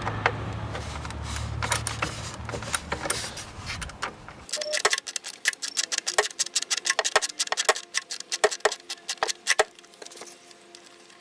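Sharp, irregular metallic clicks and clinks of hand tools and parts being handled. For the first few seconds a low steady hum runs under them, and it cuts off abruptly about four and a half seconds in.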